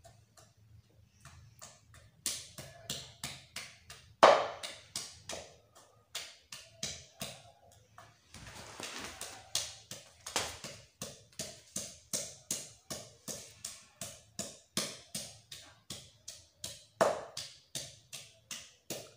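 Long wooden pestle pounding garlic and ginger in a wooden mortar: steady knocks at about two a second, with a brief break about eight seconds in.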